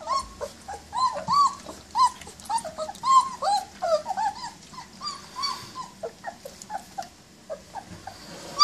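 A litter of German shepherd puppies whimpering and squeaking: many short, high cries, each rising and falling, several a second. They thin out in the second half.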